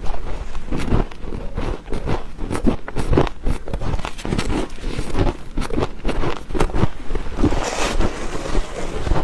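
Close-miked chewing of freezer frost: many dry, irregular crunches and crackles, with a brief rasping hiss about eight seconds in.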